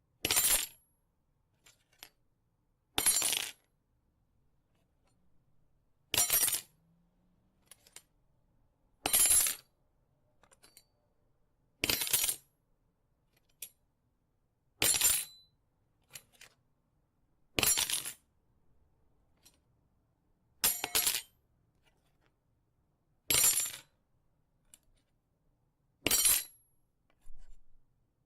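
Knife sound effects: a series of about ten short metallic strokes, one roughly every three seconds, with a doubled stroke near the middle.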